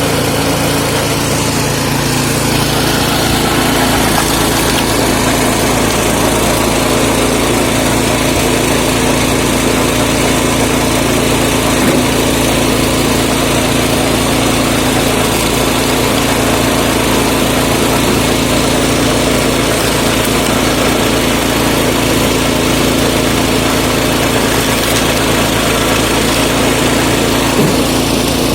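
Lifan 6.5 hp single-cylinder petrol engine running steadily as it drives a screw-cone log splitter, with a couple of brief knocks.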